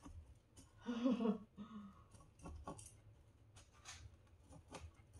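Faint scratching and crunching of gritty potting soil, with small scattered clicks of metal tweezers against the pot, as soil is pressed down around a newly repotted succulent. A short vocal sound comes about a second in.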